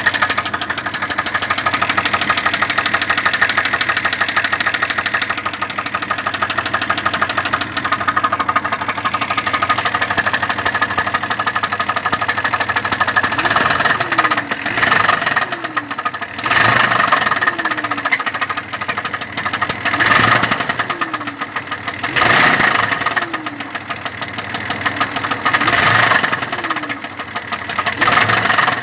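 Engine running with a knock, idling steadily at first; from about halfway it is blipped repeatedly, roughly every two seconds, each rev falling back toward idle.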